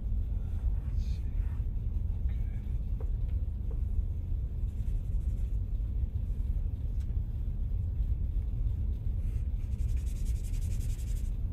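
Charcoal stick scratching on drawing paper in short strokes, most plainly near the end, over a steady low background rumble.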